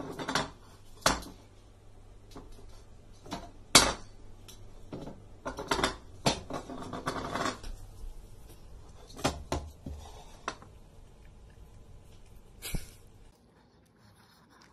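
Irregular knocks and clicks, like light household objects or a bowl being handled, the loudest about four seconds in, over a faint low hum that stops near the end.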